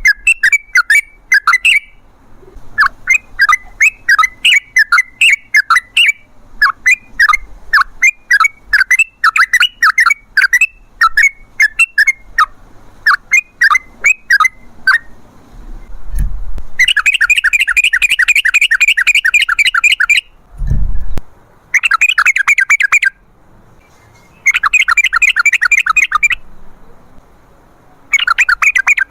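Yellow-vented bulbul (trucukan) singing loudly: phrases of short, quick sweeping notes for the first half, then long fast rolling trills broken by short pauses. Two brief low thumps come about halfway through.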